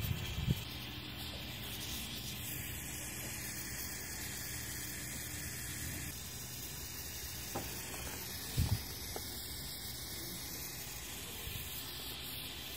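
Small soldering torch's flame hissing steadily while it heats a copper pipe joint for tin soldering. A couple of short knocks come about two-thirds of the way through.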